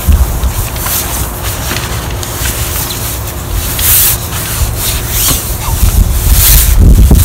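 Wind buffeting the microphone as a steady low rumble, with a background hiss that swells louder briefly about four seconds in and again about six and a half seconds in.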